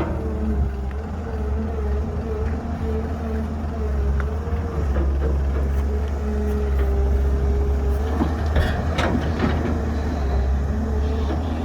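Heavy diesel construction machinery running: a steady low engine rumble with a wavering whine over it, and a few knocks about eight to nine seconds in.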